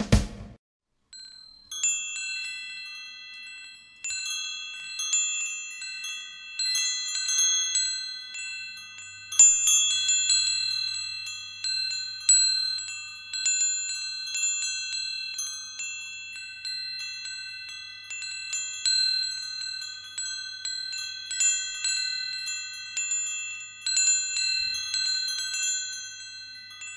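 Wind chimes ringing, several metal tones struck at uneven moments and each left to ring on, starting about two seconds in after a brief silence.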